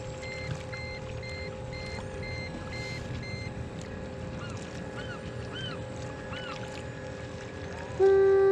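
Electric kayak thruster motor running with a steady hum. Over it come faint quick electronic beeps, about two a second, for the first few seconds, and a few short chirps around the middle.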